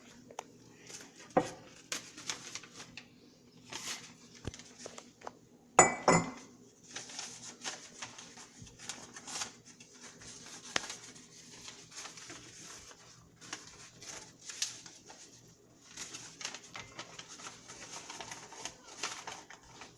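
Kitchen handling noises: irregular clicks, rattles and clinks of containers and utensils, with one loud ringing clink about six seconds in.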